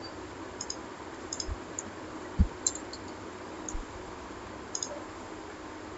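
A few faint, scattered computer mouse clicks over a steady low hiss, with one soft low thump a little before halfway.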